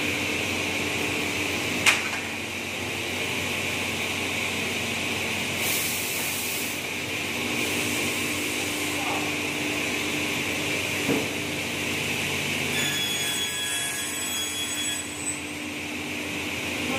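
Sliding-table panel saw and its dust extraction running with a steady hum. There is a sharp knock about two seconds in and a few lighter knocks later, as the sliding table and a board are moved on the saw.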